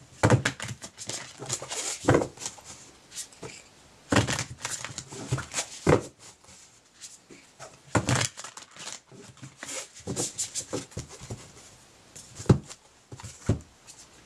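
A deck of divination cards being shuffled by hand: irregular runs of quick papery flicks and slaps, loudest at the very start and about twelve and a half seconds in.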